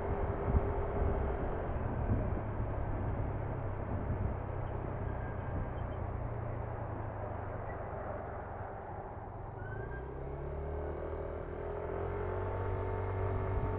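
Yamaha NMAX scooter's single-cylinder engine and CVT running under way, with steady road and wind noise. The engine note eases off as the scooter slows and rises again about three quarters of the way through as it picks up speed.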